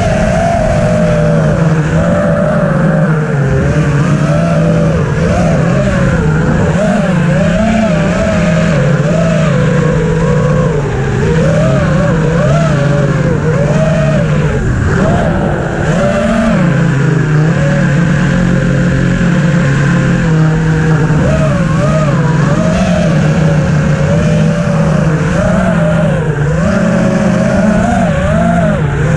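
EMAX Hawk 5 FPV quadcopter's brushless motors and propellers whining close to the onboard camera, their pitch rising and falling constantly with the throttle as it flies.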